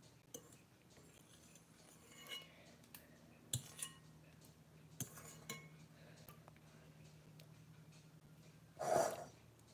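Light clinks and taps against a ceramic baking dish while eating from it, scattered over the first six seconds, over a faint steady low hum. A louder brief noise comes near the end.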